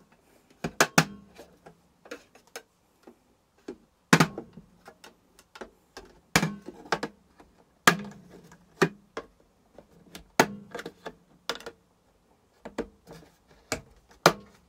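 Plastic snap-fit clips of a Tower T17079 air fryer's top panel clicking and popping free as a pry tool works under the panel's edge: a run of irregular sharp clicks and knocks, some in quick pairs, others seconds apart.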